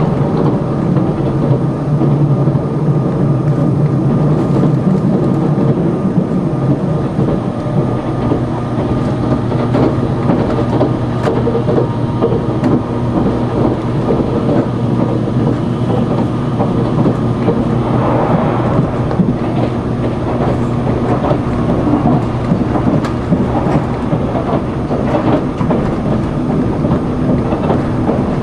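Inside the cabin of a Sonic limited express tilting electric train running fast: a loud, steady rumble of wheels on the rails with a low hum under it.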